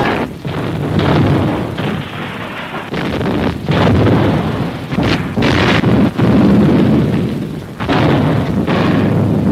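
Battle sound of explosions and artillery fire: heavy booms coming at irregular intervals, about one a second, with a continuous rumble between them.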